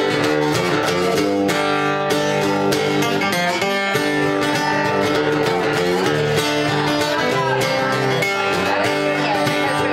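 Acoustic guitar strummed steadily, playing a country-folk tune.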